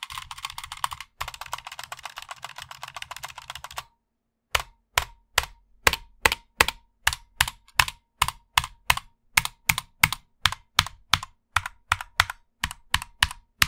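Keys clacking on a ZETA/CXTech X-61 60% hot-swap keyboard with stock Outemu Black linear switches: a fast run of typing, a short pause about four seconds in, then single key presses at an even pace of two to three a second, as when testing the modifier keys.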